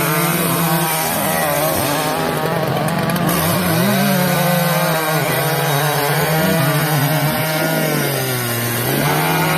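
Chainsaw engine running hard and steady while cutting wood, its pitch sagging and recovering a few times under the load of the cut.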